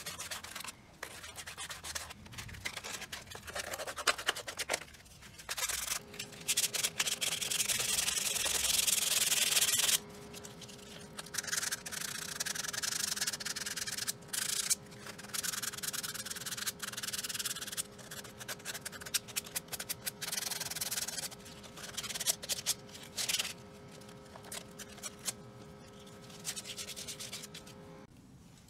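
Sandpaper rubbed by hand over a plastic Nissan 370Z shift surround trim piece, quick back-and-forth strokes with short pauses, scuff-sanding its silver finish as prep for carbon fiber skinning.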